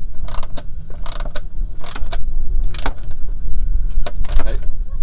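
Hand ratchet wrench clicking in short, irregular runs as it is swung back and forth to tighten a bolt, over a steady low rumble.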